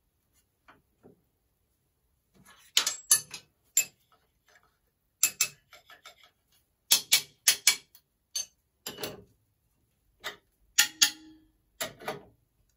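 Irregular sharp metallic clicks and clinks, about fifteen in all and some in quick pairs, as a metal plate is set in a milling machine vise and a spanner is handled against it.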